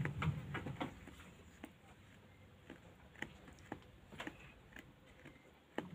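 Faint, irregular clicks and light knocks, roughly one every half second, from sheep shifting about in a wooden pen, with a sharper knock near the end.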